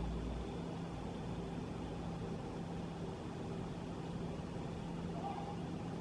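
Steady low background hum with a faint constant tone; a deeper rumble underneath stops about half a second in.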